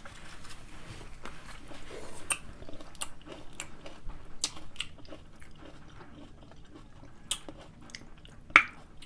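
Close-up chewing and biting of a crunchy pickle: irregular wet crunches and mouth clicks, with a sharper crunch about seven seconds in and a louder one near the end.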